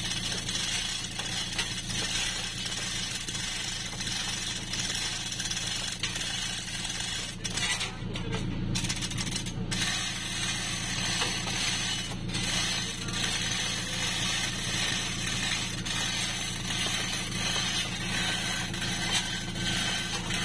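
Crane truck's engine running steadily, with a steady high hiss of working machinery over it that briefly thins out about eight seconds in.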